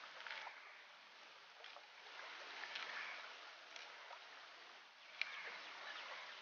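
Green chillies being cut against a curved iron floor blade (boti): faint crisp slicing with small clicks, a sharper one about five seconds in, over a steady outdoor hiss.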